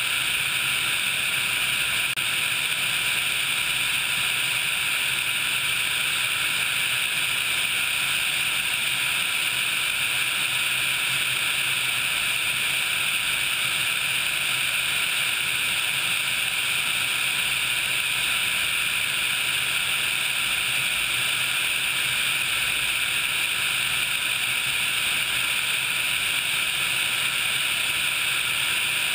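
Steady in-flight noise of an HH-60 Pave Hawk helicopter's twin turboshaft engines and rotors, picked up by a camera mounted outside the fuselage: an unchanging rushing hiss with a faint steady whine and a low hum beneath it.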